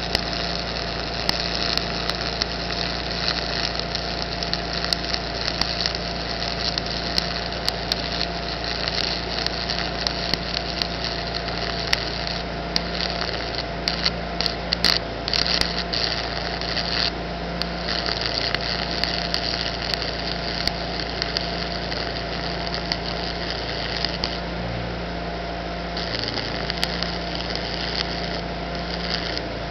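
Stick-welding arc with a 7018 rod on DC: a steady crackling hiss with frequent sharp pops, over a steady hum. The crackle breaks off briefly a couple of times.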